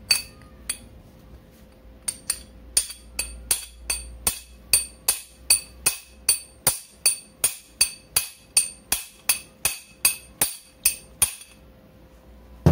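Hammer blows on a steel tube drift set over a GY6 50cc four-stroke crankshaft, driving the main bearing down onto the shaft. Two single blows first, then a steady run of sharp, ringing metallic taps at about two to three a second, and one last heavy blow at the end.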